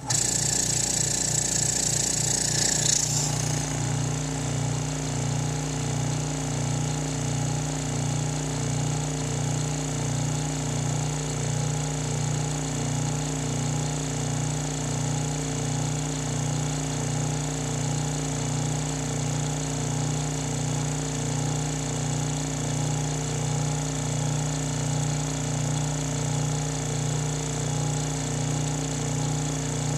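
Twin-head dry rocking-piston vacuum pump, electric, switching on and running: a loud hiss for about the first three seconds, then a steady hum with a slow, regular pulse.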